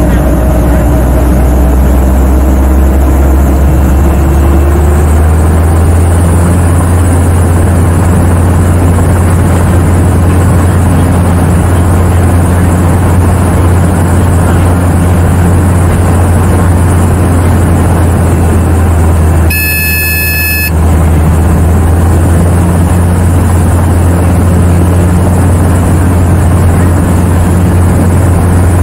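Helicopter running, its rotor and engine making a steady low drone heard inside the cabin. About twenty seconds in, the drone briefly drops out and a high electronic tone sounds for about a second.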